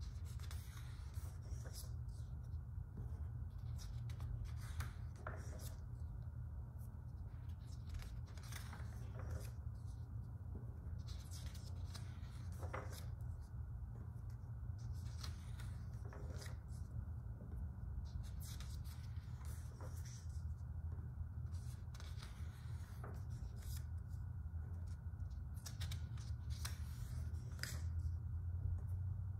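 Pages of a large art book being turned and handled by hand, paper rustling and flapping several times, over a steady low hum.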